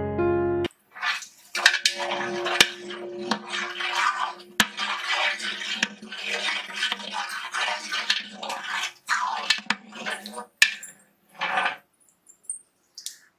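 Metal utensil stirring and scraping in a large cooking pot, with a few sharp clinks of metal on metal, stopping about a second before the end.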